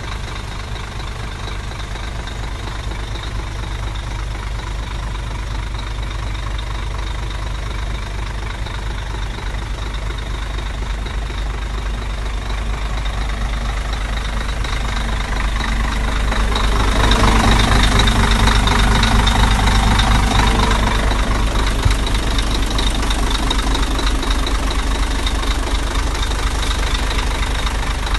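Scania 114 truck's 11-litre six-cylinder diesel engine idling, getting louder for a few seconds past the middle before settling back.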